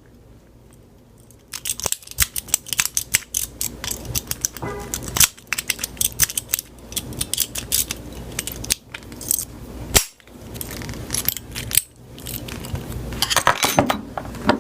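Small metal objects being handled: a busy run of sharp clicks, rattles and scrapes starting about a second and a half in, with a louder knock partway through.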